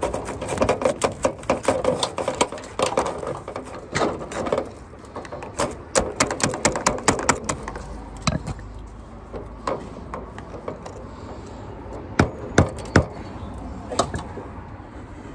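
Hand tools working at an old copper refrigerant line set against a brick wall: a string of irregular clicks, taps and knocks, thick for the first several seconds and then more spaced out.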